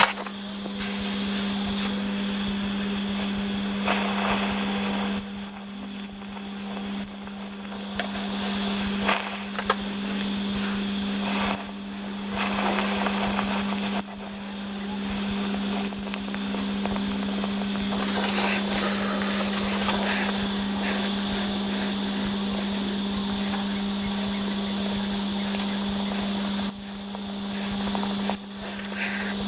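Welding and brazing equipment running, a steady hum with hiss over it, as the broken flange is brazed back onto an EGR cooler; the sound changes abruptly several times, as between cut segments of the work.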